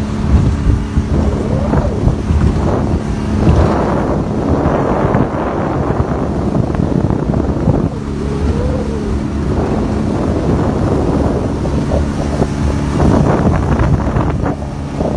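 Motorboat engine running steadily at speed, a low hum under heavy wind buffeting on the microphone and the rush of water past the hull.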